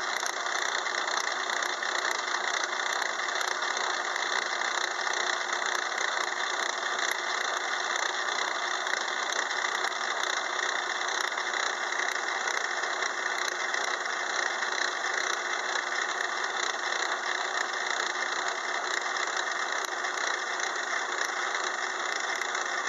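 6-inch Craftsman metal lathe running with its gear cutter fully engaged in a steel gear blank, cutting a tooth space as a power cross feed slowly advances the blank. It makes a steady, even cutting and machine noise, quieter once the cut is fully engaged and past the chatter of first contact.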